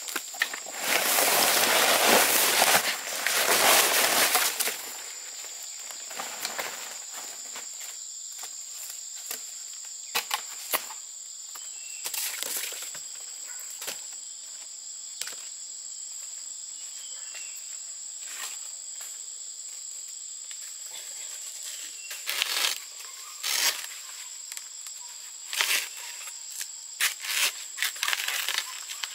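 Insects droning steadily at a high pitch in the background. Near the start there are a few seconds of loud rustling, and short rustles and snaps come now and then afterwards, bunched near the end.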